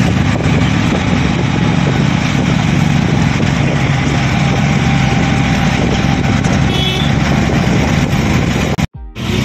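Auto-rickshaw engine running steadily as it drives along, heard from inside the cab. The sound drops out briefly near the end.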